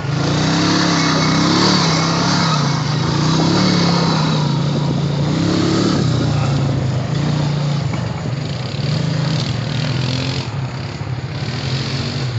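Honda Rancher ATV engine running under throttle as it is ridden, its pitch rising and falling with the throttle, over a steady rushing noise.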